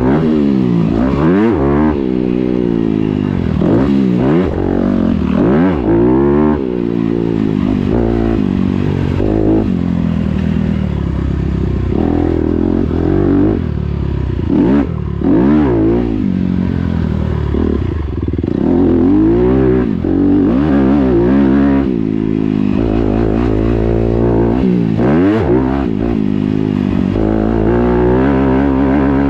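Dirt bike engine ridden hard on a motocross track, heard from on the bike: it revs up and drops off again every second or two as the throttle is opened and closed.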